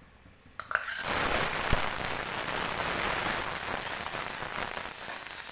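A few small clicks, then about a second in a loud, steady sizzle starts: washed dry fruits (cashews and raisins) frying in a small kadhai.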